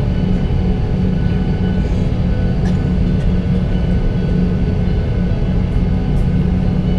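Boeing 737-800's CFM56-7B jet engines heard from inside the cabin, a steady loud drone with low rumble as the aircraft rolls along the runway.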